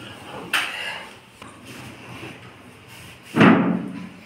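Rubbing and shifting of bodies and clothing on a wooden treatment cot as a lying man is pulled up into a half-sitting stretch, with a sharp knock about half a second in and one loud thump about three and a half seconds in.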